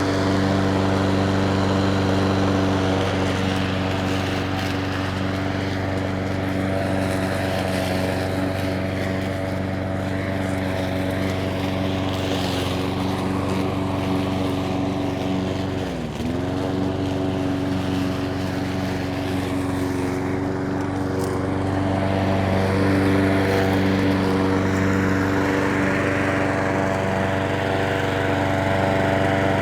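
Petrol lawn mower engine running steadily. About halfway through, its engine speed dips sharply for a moment and then recovers.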